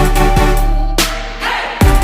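Electronic dance background music with a heavy beat and bass; about halfway through the beat drops out for a rising sweep, and the full beat comes back near the end.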